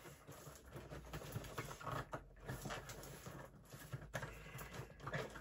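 Faint, irregular taps, scrapes and rustles of a cardboard toy box being handled as its bottom flap is worked open.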